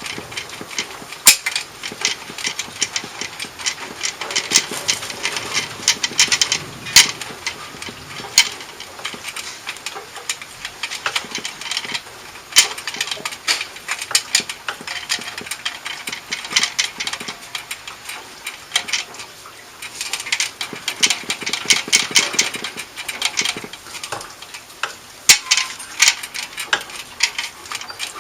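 Hand tools working on a Harley-Davidson's exhaust during a muffler removal: irregular bursts of rapid clicking with occasional sharp knocks, the loudest about a second in and near the end.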